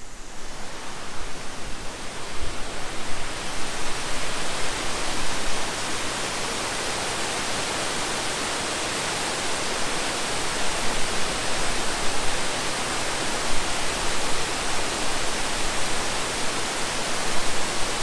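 River waterfall: water pouring in a steady, full rush. It grows louder over the first few seconds, then holds.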